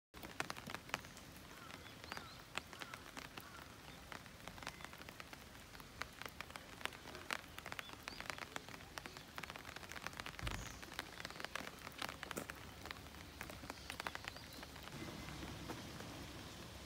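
Rain falling: a steady light hiss with irregular sharp drops ticking close by.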